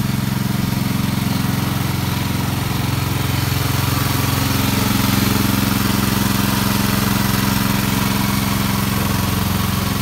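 Wheel Horse garden tractor's 9 hp single-cylinder engine running steadily under load, pulling a plough through garden soil; it gets slightly louder around the middle.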